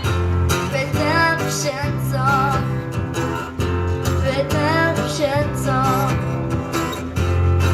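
Live street performance: a singer with vibrato over a strummed acoustic guitar.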